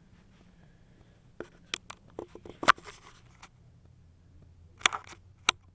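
Handling noise as a hand-held iPod touch is worked close to the microphone: a run of sharp clicks and taps, the loudest about three seconds in, then a few more near the end.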